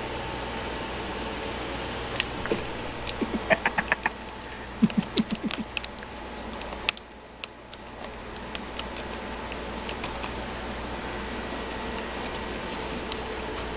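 A cat's claws scratching and catching on a sisal-rope scratching post: clusters of quick scratchy clicks in the first half, thinning to scattered ticks, over a steady low hum.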